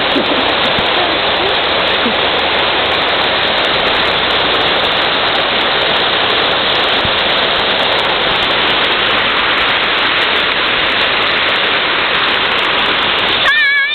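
A loud, steady rushing noise like running water. A short, high, pitched call starts just before the end.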